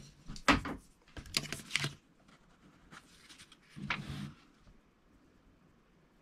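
A paper sheet and a thin styrene board handled on a cutting mat: a few short bursts of rustling and light taps as the printed sheet is lifted and laid onto the glue-sprayed board.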